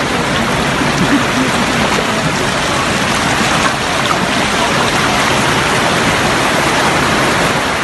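Steady rushing of fast-flowing floodwater.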